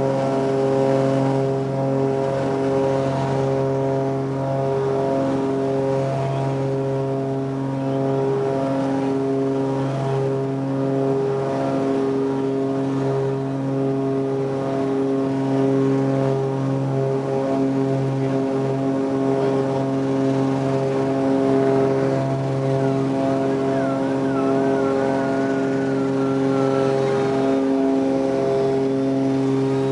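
Cessna 402B's twin piston engines and propellers at takeoff power, heard from inside the cockpit: a steady, even drone through the takeoff roll and liftoff. A faint wavering higher tone comes in near the end.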